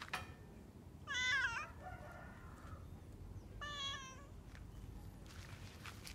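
A domestic cat meowing twice: short, high, wavering calls about a second in and again near four seconds in.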